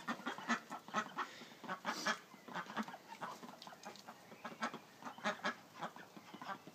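Young ducks calling, a steady run of short, irregular quacks overlapping one another.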